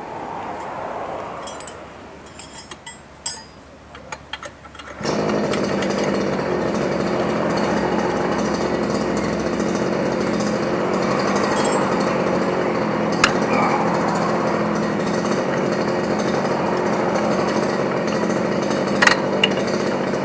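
A few light clicks and taps of hand tools on metal. About five seconds in, a motor starts abruptly and runs steadily with an even machine hum.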